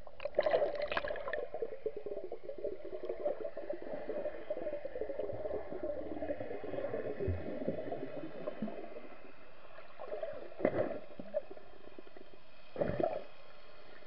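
Muffled bubbling and gurgling of water picked up by a camera held underwater, starting suddenly about half a second in and dying away over several seconds, then two short bubbly bursts near the end.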